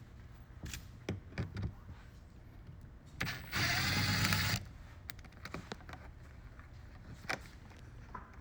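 A small electric motor runs for about a second, a little over three seconds in, amid scattered light clicks and knocks of tools and fasteners.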